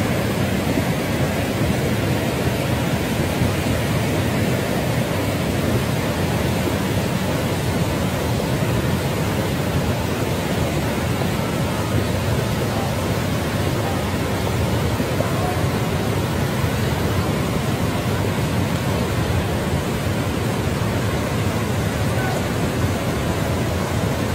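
Fast-flowing muddy flash-flood water rushing, a steady, loud, unbroken noise.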